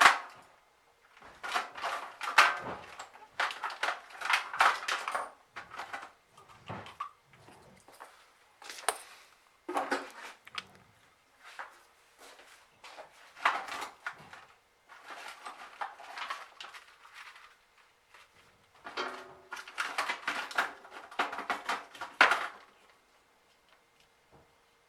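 Irregular bursts of clattering and rattling: small hard objects and tools being rummaged through and moved about, with short pauses between bursts.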